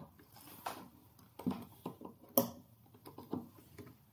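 A string of light clicks and knocks from handling a clamp meter as its jaws are closed around a battery cable, the sharpest click a little past halfway.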